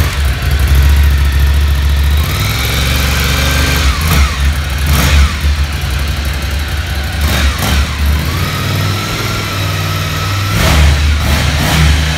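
Ducati Scrambler Icon 2019's 803 cc air-cooled L-twin engine running at idle and revved several times through its exhaust, with the pitch rising about two seconds in and again around eight seconds in.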